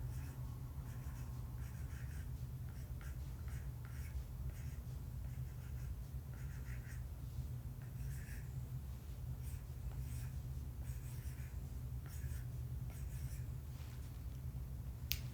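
Stylus strokes on a tablet screen as words are handwritten: short, irregular scratches and taps, over a steady low hum. One sharp click near the end.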